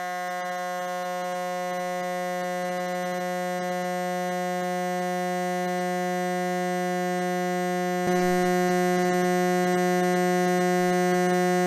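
A 180 Hz sawtooth tone from a Bluetooth speaker sealed in a vacuum chamber, picked up by a microphone inside. It is a steady buzz that grows slowly louder as air is let back into the chamber from below Everest-summit density. About eight seconds in it jumps louder and fuller.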